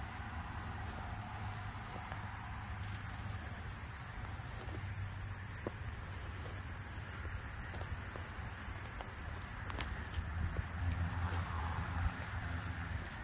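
Outdoor ambience of insects chirping steadily over a low rumble, getting a little louder about ten seconds in.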